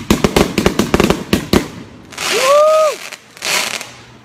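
Fireworks going off: a rapid string of sharp bangs for the first second and a half, then two hissing bursts, the first with a short tone that rises and falls.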